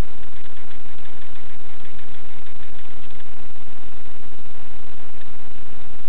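Steady, loud static hiss with faint crackle.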